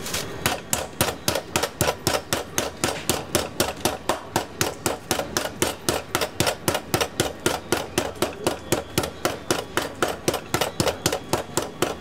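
A flat-faced meat pounder beating cutlets under plastic film on a wooden cutting board, flattening them for schnitzel. Steady, even blows, about four a second.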